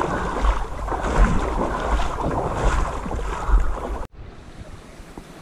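Wind buffeting a camera microphone in uneven low rumbles. About four seconds in it cuts off abruptly to a quieter, steady rush of flowing river water.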